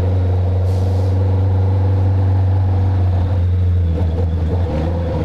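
Honda CB650F inline-four engine running steadily through an Atalla full stainless-steel exhaust, a loud, even drone.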